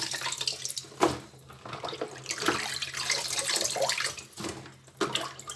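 Water sloshing and splashing irregularly as beef tripe (shaki) is washed by hand in cold water, with a sharp knock about a second in.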